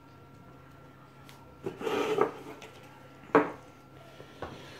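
Handling noise from a tablet on a paper sleeve on a wooden table: a short scraping rustle about two seconds in, then a sharp knock a second later and a fainter tap near the end.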